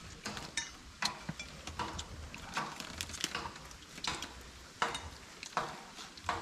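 Close-up eating sounds: irregular crisp crunches and smacks of chewing fresh lettuce and spicy noodles, with light clinks of chopsticks and forks against steel bowls.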